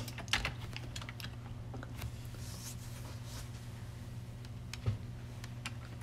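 Scattered clicks of a computer keyboard and mouse, one louder click about five seconds in, over a steady low hum.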